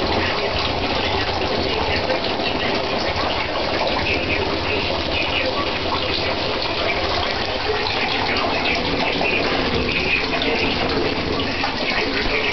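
Shower spray running steadily, the water hitting the shower curtain.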